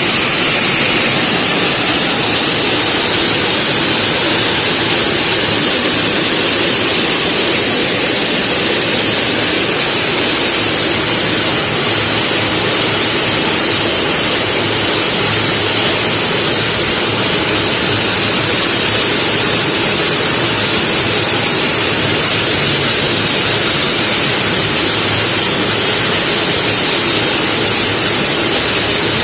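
Pine nut shelling machine running: a loud, steady, even noise with no beat and no change in pitch.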